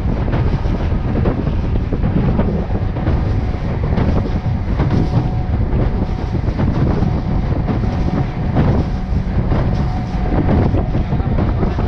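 Wind buffeting the microphone on a fast-moving panga, over the boat's outboard motor running and the hull slapping through the chop.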